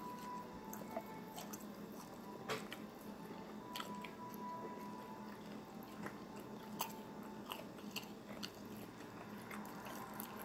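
A person chewing a bacon-wrapped chicken bite, with small scattered crunchy clicks and wet mouth noises.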